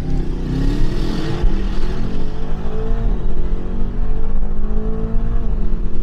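Twin-turbo V8 performance sedan accelerating flat out from a standing launch, its engine pitch climbing through the gears and dropping at upshifts about three seconds in and again near the end.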